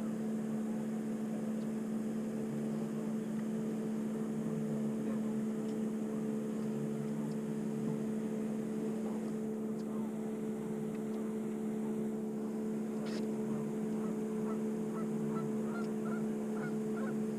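Steady two-pitch hum of a bow-mounted electric trolling motor holding the boat in place. Near the end, a run of short honking calls about two to three a second, typical of geese.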